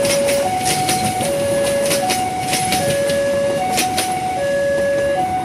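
Level crossing warning alarm sounding a steady two-tone alternation, low and high tones each held just under a second, while a passing train's wheels click in pairs over the rail joints. The wheel clicks stop about four seconds in as the last car clears the crossing; the alarm keeps sounding.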